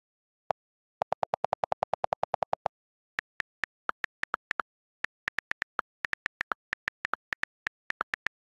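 iPad on-screen keyboard click sounds. First comes a fast, even run of about ten lower clicks a second for nearly two seconds as the delete key is held down and erases a line of text. Then come slower, irregular, higher-pitched ticks as letters are typed.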